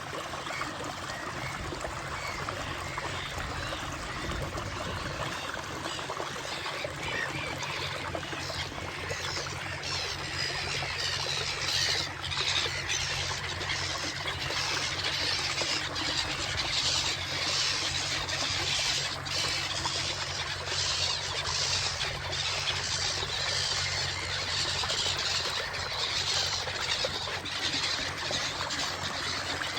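Water splashing and trickling around an inflatable kayak, as from paddle strokes and drips off the blades.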